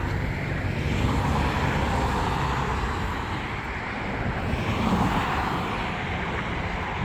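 Road traffic passing: steady tyre and engine noise from vehicles, swelling as cars go by about a second in and again near the five-second mark.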